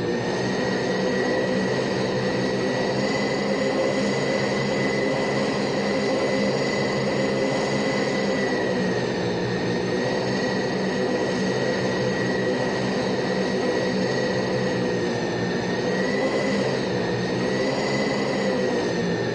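C-130J Super Hercules Rolls-Royce AE 2100 turboprop engines and six-bladed propellers running at steady power. It is a continuous drone with a steady high whine, and the pitch wavers slightly a few seconds before the end.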